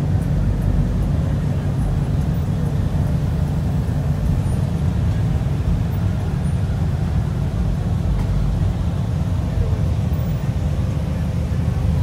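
A motor vehicle's engine running steadily, a low, even drone that holds the same pitch throughout.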